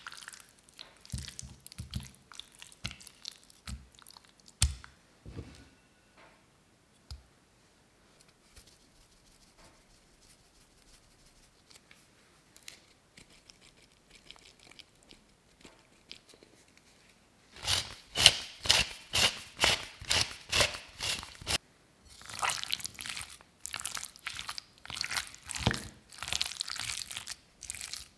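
Close-up food-prep sounds of raw chicken pieces being seasoned in a glass bowl. First come a few soft clicks of a metal measuring spoon and seasoning being added. After a quiet stretch, two runs of quick, crisp crunchy strokes at about four a second follow as the seasoned chicken is stirred and tossed in the bowl.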